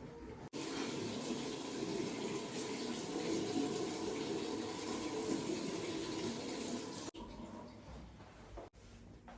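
Water running steadily, like a tap, starting abruptly about half a second in and cutting off sharply about seven seconds in; fainter sounds follow.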